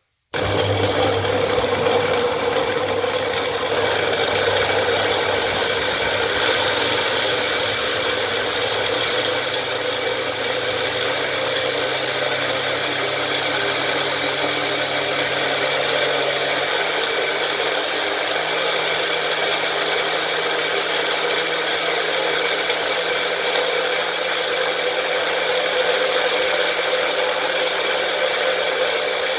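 Bullet-style personal blender running steadily, pureeing chopped carrots, ginger, lemon and water into juice. It switches on just after the start, and its motor hum steps up in pitch twice, about ten and seventeen seconds in, as the carrot chunks break down and the load eases.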